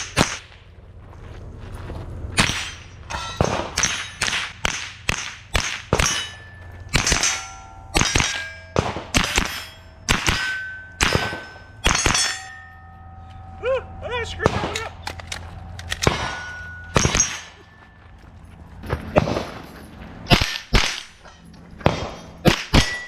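A rapid string of AR-style rifle shots at steel targets. Many shots are followed by the short ring of a struck steel plate, marking hits.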